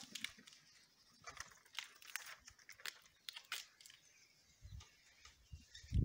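Faint scratching and squeaking strokes of a whiteboard duster and marker on a whiteboard: short, irregular strokes, with a couple of soft low knocks near the end.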